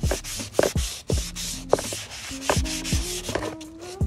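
Hand wet-sanding with 400-grit sandpaper on an Infiniti G35 coupe's factory mud flap: quick, repeated back-and-forth rubbing strokes that take the gloss off the finish to prepare it for adhesion promoter and paint. Background music with a steady beat plays underneath.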